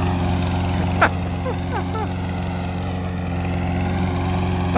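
Briggs & Stratton OHV single-cylinder engine of a walk-behind lawnmower running steadily, with a brief sharp knock about a second in.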